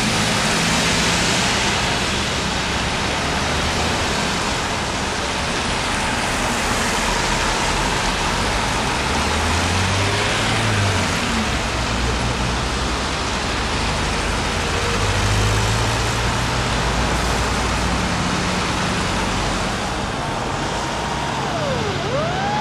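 Highway traffic passing a burning car, a steady rushing noise with a heavy truck's engine passing through the middle. Near the end a fire engine siren starts, its pitch sweeping down and back up.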